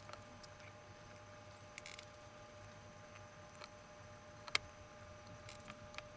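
Faint clicks and taps of a small screwdriver and fingers working on a metal Contax G1 camera body, with one sharper click about four and a half seconds in, over a low steady hum.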